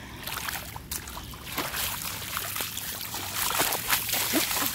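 Feet in flip-flops splashing and sloshing through shallow water, over a steady trickle of water. The splashes grow louder in the last second or so.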